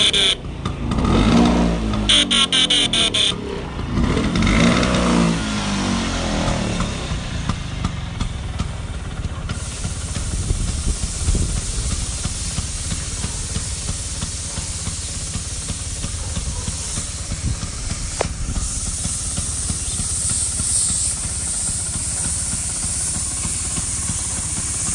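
Restored Vespa 150 scooter's single-cylinder two-stroke engine, revved up and down a few times in the first several seconds, then running steadily with an even rushing noise.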